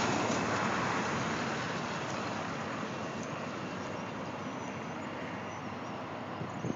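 Road traffic noise, loudest at the start and slowly fading away, with a small knock near the end.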